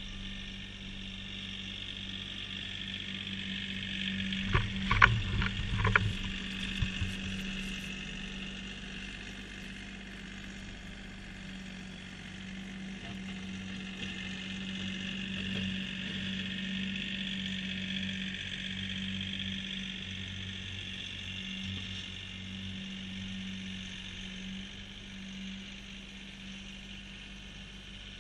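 Kioti CK3510 compact tractor's diesel engine running steadily at a distance while it pushes snow, with a handful of sharp clanks about four to six seconds in.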